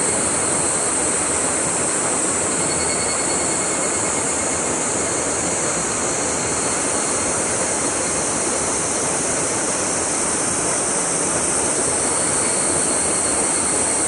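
Steady rushing of stream water pouring into a rocky pool, with a steady high-pitched hiss over it.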